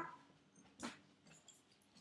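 Near silence: room tone, with one faint short tap a little under a second in.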